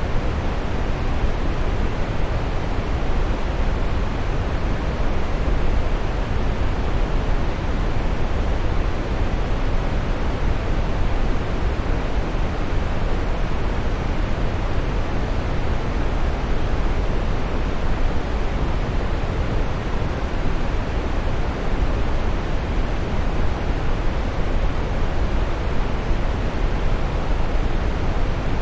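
Waterfall: water falling and splashing in a steady, unbroken rush, heaviest in the low range.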